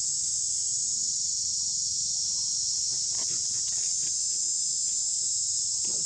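Steady, high-pitched insect chorus droning without a break, with a few faint scattered clicks about halfway through and near the end.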